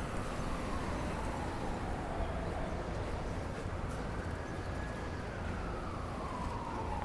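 Distant siren wailing, its pitch holding high and then falling slowly, about twice, over a steady low hum of city traffic.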